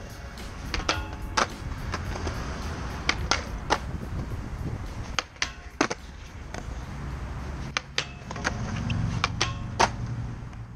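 Background music with sharp, irregularly spaced clacks.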